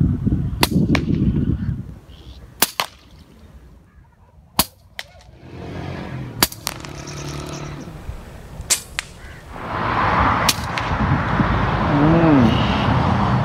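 Pakistani-made QS MK3 PCP air rifle firing about six times, each shot a sharp crack, most followed a fraction of a second later by a second click.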